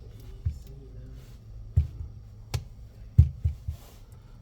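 A handful of light, irregular taps and clicks, like small objects being handled and set down on a hard surface, over a low steady hum.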